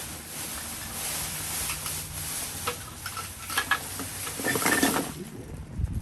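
Plastic rubbish bags being rummaged and pulled open, a steady crinkling with sharper crackles that grow louder toward the end and stop abruptly about five seconds in.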